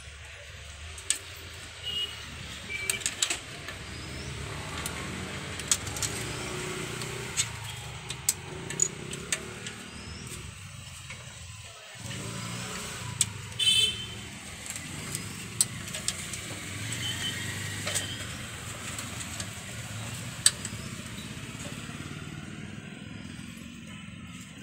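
Scattered sharp clicks and taps of a screwdriver and wiring being handled at a motorcycle's starter relay, over a steady low rumble of vehicle traffic.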